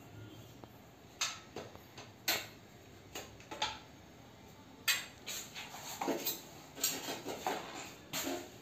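Irregular sharp metallic clinks and knocks from a lever-type tube bender and copper refrigerant pipe being worked and handled.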